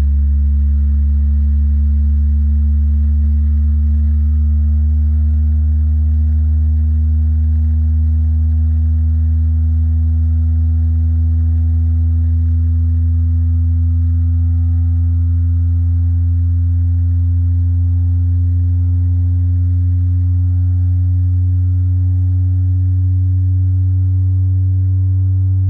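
Fenton HF5W home theatre speakers playing a loud, deep bass test tone that rises slowly in pitch, with fainter overtones above it.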